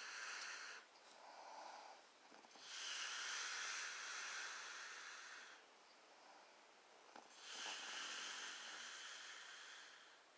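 Faint snoring of a sleeper: three long, hissy breaths, each about three seconds, coming roughly every five seconds with quiet pauses between them.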